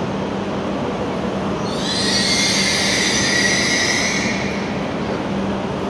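E6 series Akita Shinkansen train creeping up to couple, its wheels and brakes letting out a squeal of several high tones for about two and a half seconds, starting just under two seconds in, over a steady station rumble and low hum.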